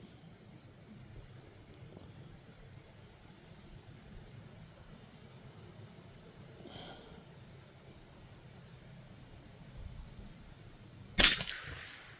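A single .22 LR rifle shot about eleven seconds in, sharp and loud, over a steady high buzz of insects.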